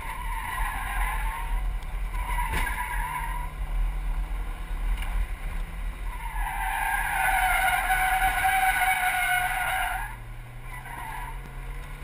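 Mazda MX-5 Miata's tyres squealing as it corners hard on an autocross course, over the steady note of its engine. There are two short squeals in the first few seconds, then one long, louder squeal from about six to ten seconds in, after which the engine drops to a lower note.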